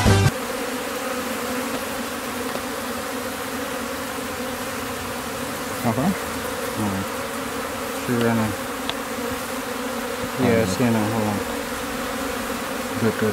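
Steady, dense buzzing of a mass of Africanised honey bees as their colony is disturbed. A few short, louder sounds rise above the hum now and then.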